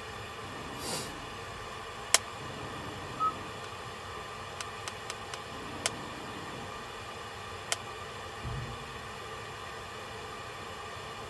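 Steady hiss of a car cabin's background noise, with a few sharp clicks scattered through it, one very short high beep about three seconds in, and a dull low thump near the end.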